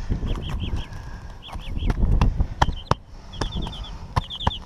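A small bird chirping in quick runs of three to five short, curved notes, repeated several times, over scattered sharp clicks and taps from work on the asphalt shingles and a low rumble.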